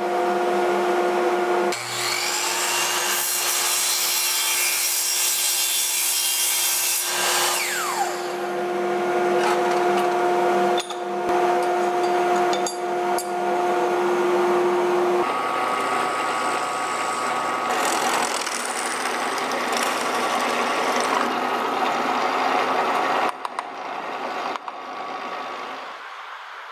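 Sliding compound miter saw running and cutting through aluminum T-track, the blade screeching through the metal over a steady motor whine. The saw noise stops about three seconds before the end.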